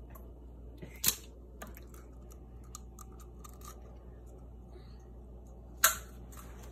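A brown eggshell being cracked and picked apart by hand: faint crackling of shell between two sharp clicks, one about a second in and a louder one near the end.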